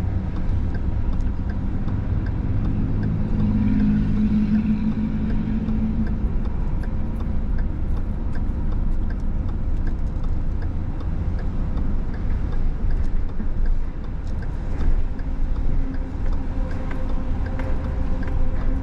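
Steady low rumble of road vehicles, with a louder hum about three to six seconds in.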